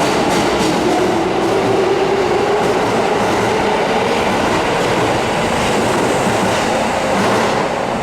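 Kintetsu 7000 series subway train pulling out of the station, its traction motors whining in shifting tones over steady rolling noise, with wheels clicking over rail joints. The sound fades near the end as the train leaves.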